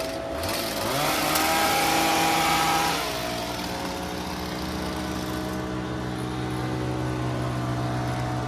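Lawn mower engine running. Its pitch rises within the first second, it runs louder until about three seconds in, then settles to a steady drone.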